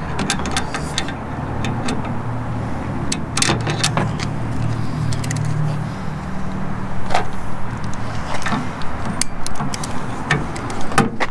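Milwaukee cordless drill working into the steel rail of a truck-bed rack, a low steady drone that is strongest midway, with scattered metal clicks and knocks.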